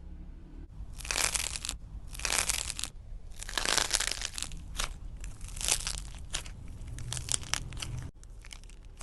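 Slime being squeezed and worked by hand, giving irregular bursts of crackling and crunching, with several sharp crackles between the longer squeezes.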